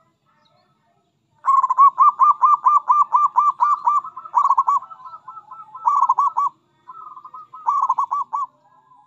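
Zebra dove (perkutut) cooing: a long rapid run of short staccato notes, about four a second, beginning about a second and a half in, followed by three shorter bursts of the same notes.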